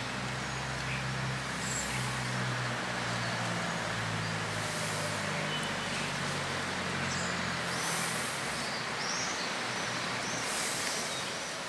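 Steady outdoor noise with a vehicle engine's low hum underneath, which fades out about eight seconds in; a few faint high chirps come near the end.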